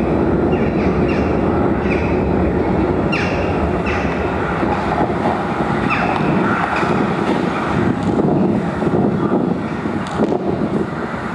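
Electronic ambient soundscape: a dense, steady low rumble overlaid with short falling chirps, several in the first four seconds and a few more later.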